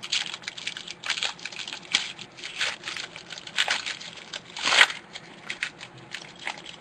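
A foil-lined trading-card pack being torn open by hand, its wrapper crinkling and crackling in uneven spurts, with the loudest tear near five seconds in.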